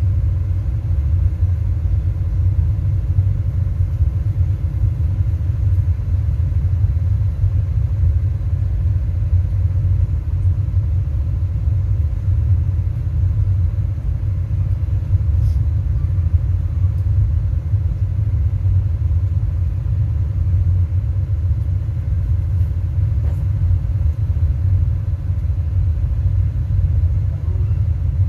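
Loud, steady deep bass rumble from a large sound system's subwoofers during tuning, unchanging throughout.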